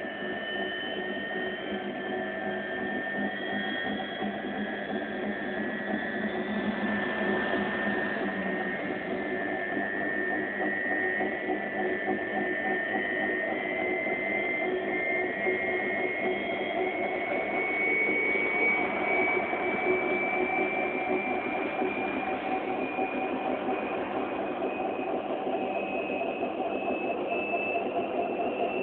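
Hoover Ultra Care 1300 vacuum cleaner's motor running with a steady squealing whine that slowly climbs in pitch.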